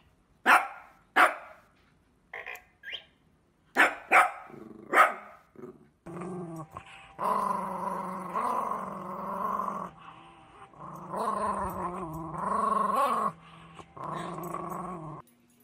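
A dog barks sharply about seven times over the first six seconds. Then a Yorkshire terrier growls in long, wavering growls with short breaks as it tugs on a rope toy.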